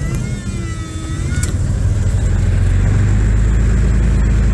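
Cessna 172's piston engine running, heard from inside the cockpit with the propeller turning; after about a second and a half it grows louder over a second or so and then holds steady.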